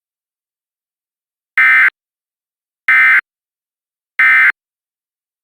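Emergency Alert System end-of-message signal: three short, loud bursts of SAME digital data tones, about 1.3 seconds apart, marking the close of the alert.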